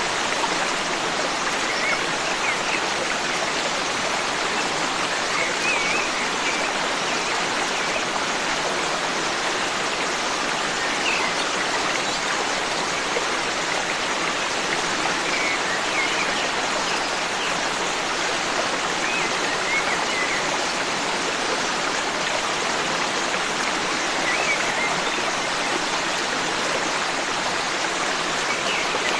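Forest stream with water rushing steadily over rocks, and faint, short bird chirps every few seconds.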